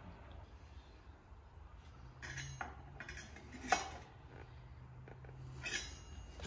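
Three short metallic clinks with a brief ring, about two, three and a half and six seconds in, from a bicycle's bent disc brake rotor being trued with a rotor truing tool at the caliper.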